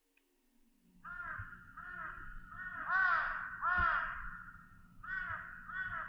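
Crows cawing: a run of harsh, arched caws about a second in, a short pause, then two more near the end, over a low steady rumble.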